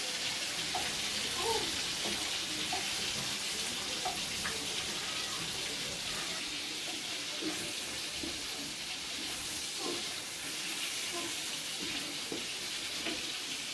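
A steady hiss, with a few faint short sounds scattered through it.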